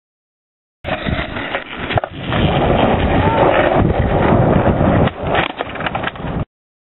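Skateboard wheels rolling on asphalt, a loud steady rumble, with a sharp knock about two seconds in. Several clattering knocks come near the end as the board tips over and the rider steps off. The sound starts and stops abruptly at edits.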